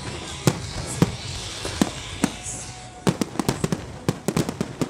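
Fireworks display: aerial shells bursting with sharp bangs, single reports about every half second at first, then a rapid run of many bangs in the last two seconds, over a hiss.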